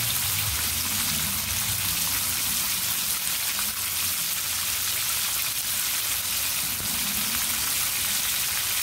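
Battered chicken wings deep-frying in canola oil in a cast iron pan: a steady, even sizzle of bubbling oil. The sizzle is dying down as the chicken cooks through, which the cook takes as the sign the wings are ready to come out.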